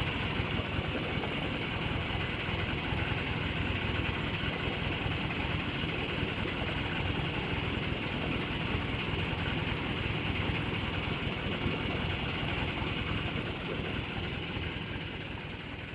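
Fishing boat's engine idling with a steady hum, under wind and water noise; it fades toward the end.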